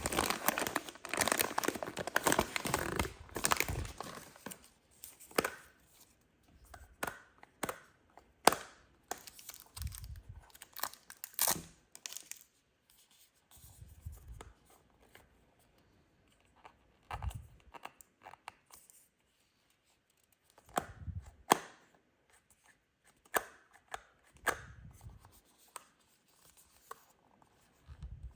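Toy blind-box packaging being torn open and handled: a few seconds of dense tearing and crinkling, then scattered short rustles, taps and clicks with quiet gaps between them.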